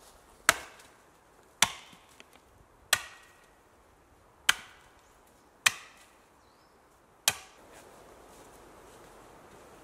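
Axe chopping into the end of a wooden pole held upright on a log chopping block: six sharp strikes, a little over a second apart, each ringing off briefly.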